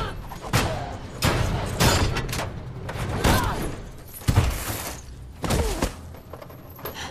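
Movie fight-scene sound effects: a string of about seven hard hits and thuds, with heavy metal clanks from a chained car door being swung, mixed with grunts. It grows quieter about six seconds in.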